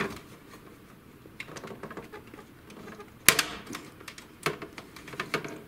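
Plastic clicks and light knocks as a printer's plastic cover is worked loose from its latches and mounts, with one sharp snap a little past halfway.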